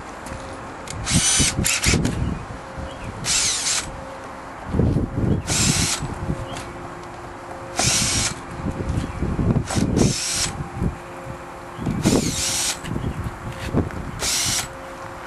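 Cordless drill/driver backing out the screws that hold a cutting template to a plastic bumper cover, in about eight short whirring bursts roughly two seconds apart, with knocks and handling noise between them.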